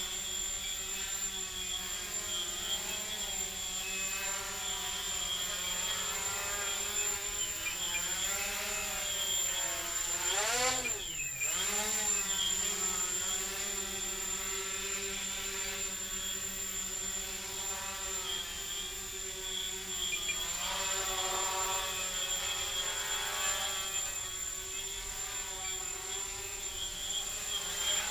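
Micro quadcopter (RC Logger Eye One Xtreme on a carbon fiber frame with RcTiger brushless motors and 6x2 carbon fiber props) flying, its motors and props making a buzzing whine whose pitch rises and falls as it manoeuvres. About ten seconds in it sweeps past, the pitch swinging up and then sharply down, the loudest moment.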